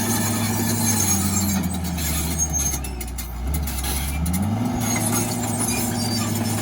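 Bulldozer's diesel engine running steadily while moving dirt; about a second in its pitch sags and stays low for a couple of seconds as the engine takes load, then climbs back up about two-thirds of the way through.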